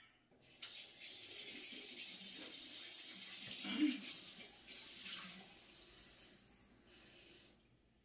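Water running from a tap for about five seconds, starting about half a second in, with a short knock partway through and a brief second run of water near the end.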